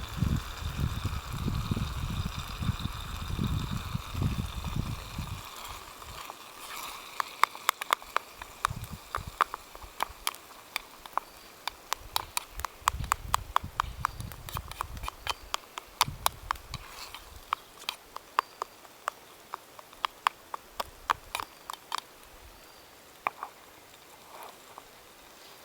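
A low rumbling noise for the first few seconds, then a long run of sharp, short taps and clicks, a few a second and unevenly spaced, which thin out near the end.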